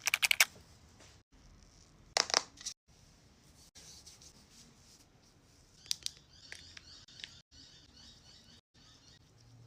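Small clicks and taps of makeup cases, lids and tools being handled, in short pieces cut together; the loudest are a fast run of clicks at the very start and another short cluster about two seconds in, with fainter clicks and light rustling later.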